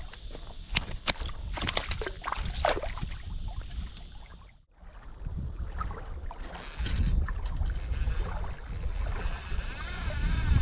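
Small waves lapping and splashing on a pebbly lakeshore, with wind rumbling on the microphone; after a brief gap, steady wind noise on the microphone continues with a faint high hiss.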